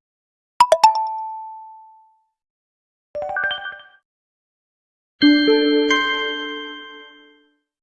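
Three short Xiaomi Redmi Note 8 Pro alert tones played one after another with silence between: a bright ding about half a second in that rings out, a brief tinkling chime about three seconds in, and a fuller bell-like chord of several notes from about five seconds in that slowly fades.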